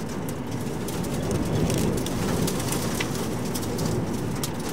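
Severe dust-storm wind, gusting near 58 mph, buffeting a vehicle and heard from inside the cabin with the windows up: a steady low rush, with scattered ticks of blown sand and grit striking the body and glass.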